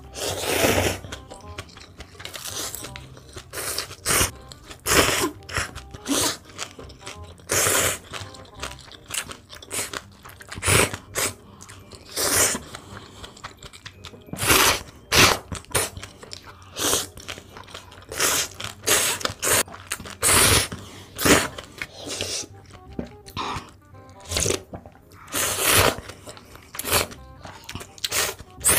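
Close-miked eating of noodles: repeated wet slurps as strands are sucked in, mixed with chewing, a burst about every second or so.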